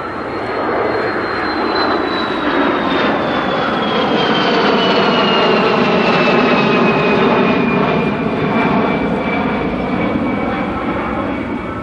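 A Kawasaki C-1 transport jet's twin Pratt & Whitney JT8D turbofans are heard as it makes a low, steeply banked pass overhead. Loud engine noise builds to a peak about halfway through, and a high whine falls steadily in pitch as the aircraft goes by.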